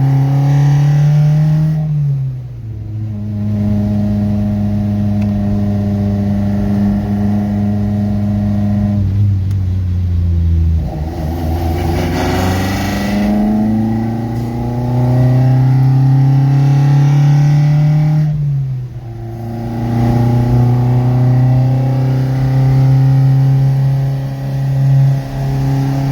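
Mk2 VW Golf engine running under way as the car drives, its note dropping away three times and picking up again, with a rising pull in between.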